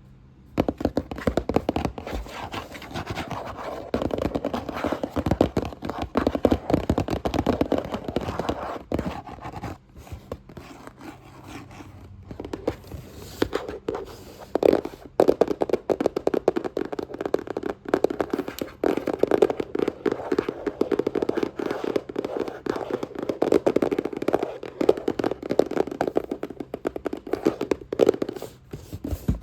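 Fast, aggressive tapping and scratching on a box with the fingers: dense runs of rapid taps, with brief lulls about ten and twelve seconds in.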